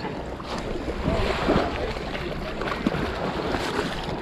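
Wind buffeting the microphone over splashing water, as a hooked silver salmon thrashes at the surface near the line.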